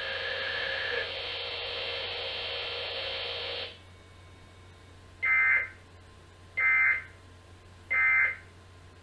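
A steady broadcast hiss with faint tones cuts off sharply about four seconds in. It is followed by three short, identical, high digital data bursts of an Emergency Alert System end-of-message code, each about half a second long and about a second and a half apart, marking the end of the alert.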